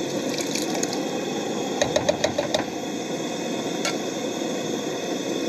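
Canned diced tomatoes being emptied into a pot on a propane camp stove, with a quick run of metal clinks and taps about two seconds in, over the steady hiss of the stove's burner.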